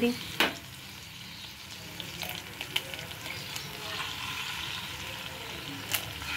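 Onion-tomato masala sizzling in a frying pan, with a few sharp clicks and taps. A raw egg is poured in from about four seconds in, and the sizzling gets louder as it hits the hot oil.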